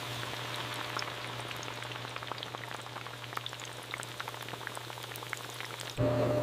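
Potato chips deep-frying in hot oil: a steady sizzle full of small crackles and pops over a low hum. About six seconds in it jumps abruptly to a louder sizzle with a steady tone.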